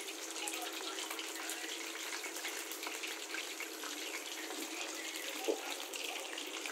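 Pot of milkfish sinigang broth boiling on a gas stove: a steady bubbling and crackling, with a single knock about five and a half seconds in.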